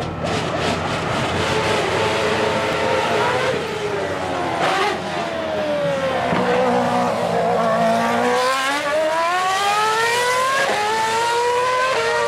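Open-wheel Formula One-style race car engine running at high revs. Its pitch sinks for several seconds, then climbs again with quick gear shifts near the end.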